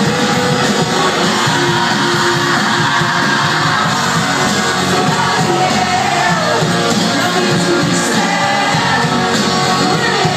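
Live rock band playing a song with singing, guitars and drums, loud and dense, heard from within the audience in a large hall.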